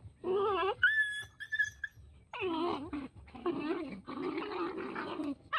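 Puppies whining and yelping as they wrestle in play: a run of drawn-out, whiny calls that bend in pitch, with a thin high squeal about a second in.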